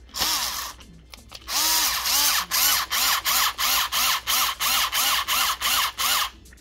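Bosch cordless screwdriver driving a screw into a coffee machine's plastic brew-group drive housing. It runs in one short burst, then in a quick series of short bursts about three a second, the motor speeding up and slowing each time.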